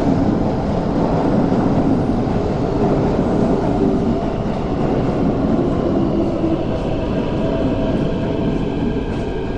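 MTR K-train (Hyundai Rotem electric multiple unit) pulling into an underground station platform, a steady rumble of wheels and running gear. A whine of several steady high tones comes in about halfway through.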